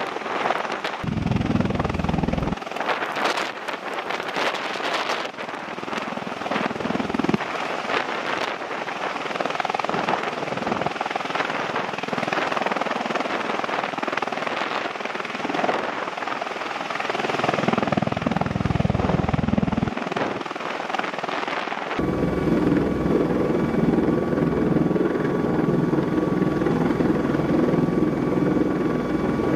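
MV-22 Osprey tiltrotor hovering, its proprotors and engines running loud, with occasional low buffeting. About 22 s in it switches to the sound inside the Osprey's cabin: a steadier drone with a high steady whine over it.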